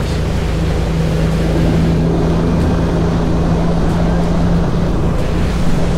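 Yamaha 30 hp outboard motor running steadily at about 3,000 rpm with the boat planing, one even engine note over a continuous rush of water and wind.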